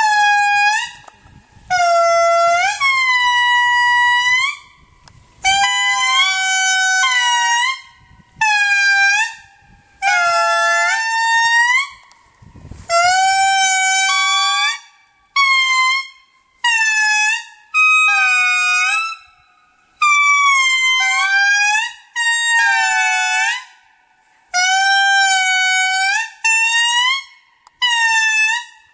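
Indris singing in chorus: a string of loud, trumpet-like wailing notes, each a second or two long, with the pitch swooping up or down, several voices overlapping at different pitches.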